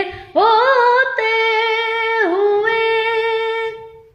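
A boy's high voice singing one long held note of an Urdu naat, rising into place, wavering once and fading out near the end.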